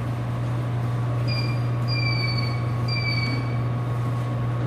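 Steady low hum with three short, high squeaks about three-quarters of a second apart, each falling slightly in pitch.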